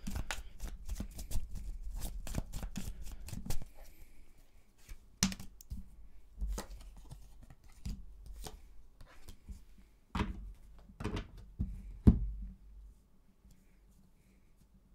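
A deck of tarot cards being shuffled by hand: a quick run of card flicks for about four seconds. Then come about half a dozen separate sharp snaps and taps as cards are pulled from the deck and laid down on the wooden table.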